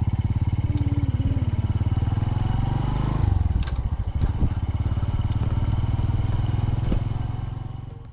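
Freshly overhauled Honda Supra single-cylinder four-stroke motorcycle engine running under way, a steady pulsing exhaust note that changes about three seconds in, then fades and cuts off at the end.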